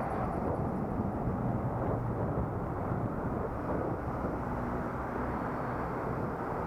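Steady engine hum and low wind and road rumble of a vehicle under way, with no sudden events, heard through a helmet-mounted action camera.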